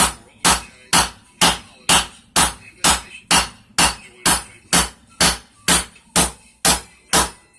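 Forging hammer striking a heated railroad spike on an anvil in steady blows, about two a second, spreading the steel out into a knife blade.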